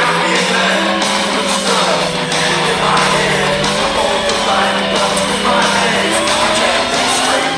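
Background music: a rock song with singing.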